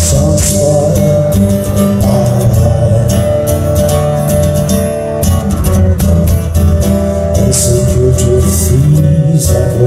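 Live music: acoustic guitar strummed steadily over a deep, sustained bass.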